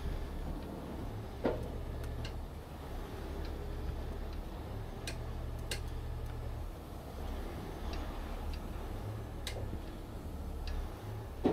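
Steel winch cables, chains and snatch blocks of a heavy rotator ticking and clicking irregularly as they sit under tension on a stuck box truck, over a steady low rumble. The loudest click comes about a second and a half in.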